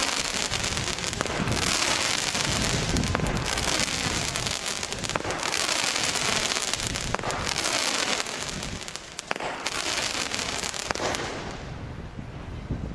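Aerial firework burning as it climbs, giving a continuous hissing, crackling spark trail that swells and eases in surges, with a few sharp cracks among it. It grows fainter near the end.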